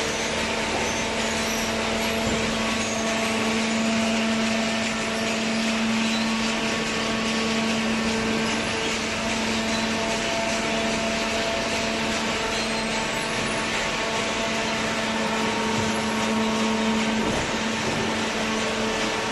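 Vertical cardboard baler's hydraulic power unit running: a steady electric-motor hum with a constant low tone over a hiss, holding even without rising or falling.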